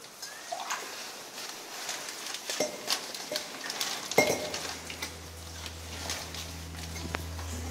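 A water-sample bottle being dipped and filled in a small cave pool: splashing water and a series of small clinks and knocks of the bottle against the rock. About halfway through, soft background music with held low notes comes in.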